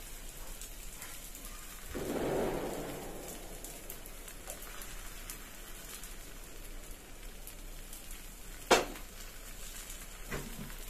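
Aloo paratha frying on a hot flat pan: a steady, faint sizzle with fine crackles, swelling louder for about a second two seconds in. Near the end comes a single sharp click.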